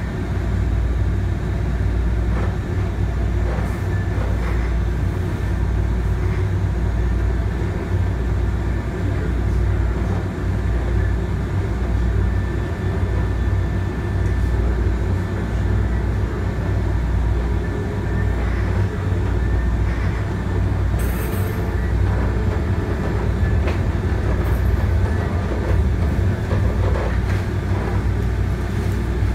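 MBTA Green Line light rail car running along the track, heard from inside the passenger cabin: a steady low rumble.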